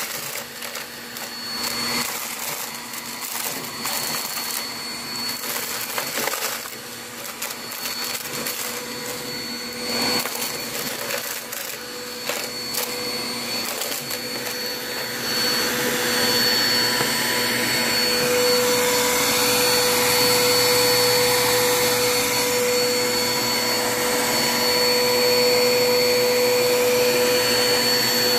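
Bagless upright vacuum cleaner running over a rug with a steady motor whine, confetti and glitter crackling and clicking as they are sucked up. About halfway through, the sound grows louder and smoother, with fewer clicks.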